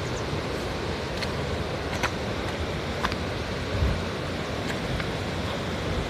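Swollen, muddy river in flood after a typhoon, rushing past the bank with a steady noise of churning water. A dull low thump sounds about four seconds in.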